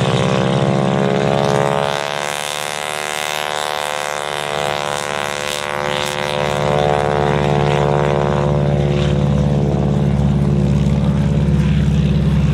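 A North American T-6 Texan's radial engine running at high power as the trainer rolls down the runway past the listener. Its pitch rises over the first few seconds, then falls away as it passes. Underneath is a steady low rumble from a P-51 Mustang's engine on the runway, growing louder near the end.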